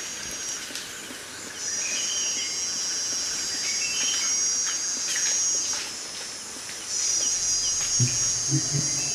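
Insects trilling in long, high-pitched bouts of about four seconds each. One starts under two seconds in and another about seven seconds in, with softer chirping underneath.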